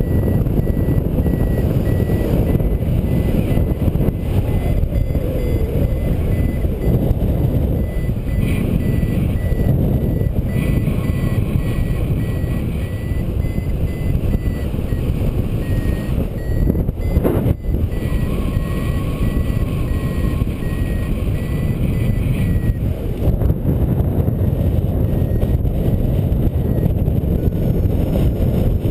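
Heavy wind rush on the microphone in flight, with a paragliding variometer beeping over it in quick, regular high-pitched pulses: the climb tone signalling rising air. The beeping stops about three-quarters of the way through, and there is one sharp click a little past the middle.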